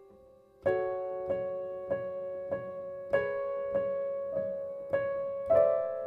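Background music: a slow piano piece. After a brief hush, a chord strikes about two-thirds of a second in, followed by single ringing notes at an even, unhurried pace.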